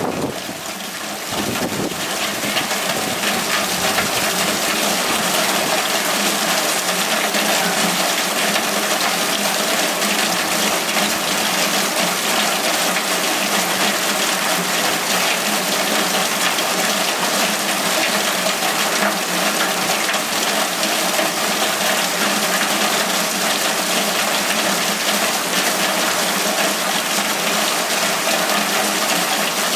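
Heavy hurricane rain pouring down in a dense, steady hiss, growing a little louder about a second in.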